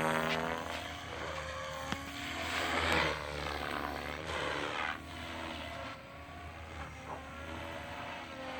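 Goblin 380 electric RC helicopter flying 3D aerobatics, its rotor blades and motor whirring with a pitch that rises and falls as it swoops about; loudest about three seconds in.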